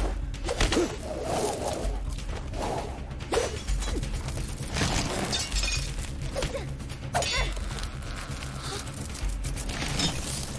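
Staged fight sound effects, a run of sharp crashing hits and swishes, over dramatic background music with a low repeated pulse.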